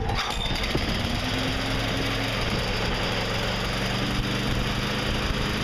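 Briggs & Stratton overhead-valve lawn mower engine on a Toro Recycler running steadily just after being pull-started on choke, now firing on its newly replaced ignition module. About two and a half seconds in it settles to a slightly lower speed.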